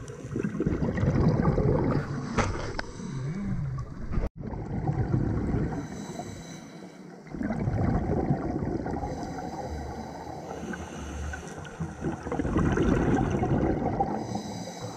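Scuba diver breathing through a regulator underwater, the exhaled bubbles rumbling in bursts that swell and fade every few seconds.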